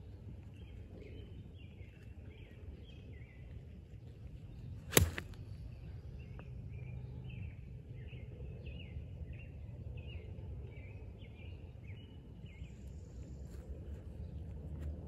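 A golf iron strikes a rubber bouncy ball with one sharp crack about five seconds in; the ball breaks on impact, split in half, and gives a brief 'zzz' sound just after the hit. A bird chirps repeatedly in the background.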